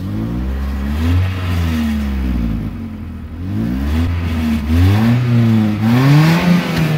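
Mitsubishi Pajero iO's petrol engine revved by pumping the accelerator pedal: the revs rise and fall several times, going highest near the end.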